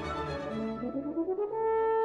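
Background music: a slow melody of held notes, rising in the middle into a long held note near the end.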